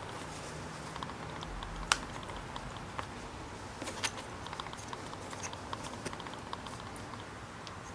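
Scattered light clicks and taps of small objects being handled, with a sharper knock about two seconds in and another about four seconds in.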